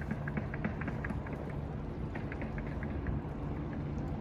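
An engine running steadily: a low, even hum with faint scattered ticks over it.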